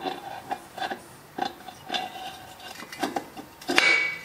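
Finned BMW motorcycle cylinder head being turned around and reseated by hand on a metal milling fixture: a string of irregular metal-on-metal clunks and scrapes, some with a brief ring, the loudest scrape near the end.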